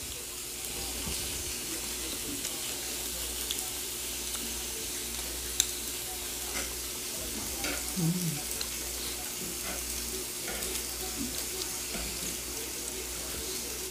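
Slices of samgyupsal (pork belly) frying on a hot grill: a steady sizzling hiss with scattered small pops of spitting fat.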